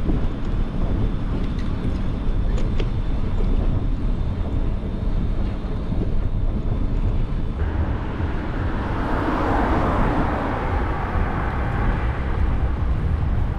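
Wind rumbling on the microphone of a moving bicycle, with street traffic around it; a motor vehicle passes from about eight seconds in, loudest around ten seconds, then fades.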